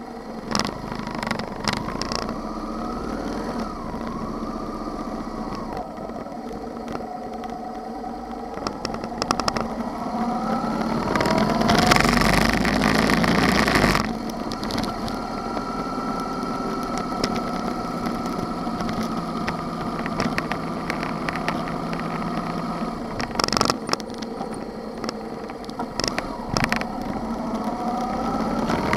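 Motorcycle engine pulling away from a stop and rising in pitch as it speeds up, with a loud rushing noise for about two seconds midway. It then runs steadily at cruising speed, and the pitch climbs again near the end.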